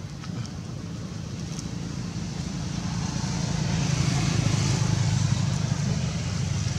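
A motor vehicle passing nearby: a low engine rumble with a hiss that grows over the first few seconds, peaks about four to five seconds in, then eases off.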